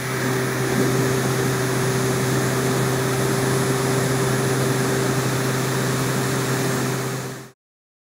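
Tiny electric fan motor in a miniature air-conditioner gadget whirring steadily with a constant hum, cutting off suddenly near the end.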